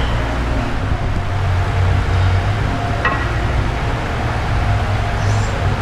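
Steady low rumble of a large gym's background noise.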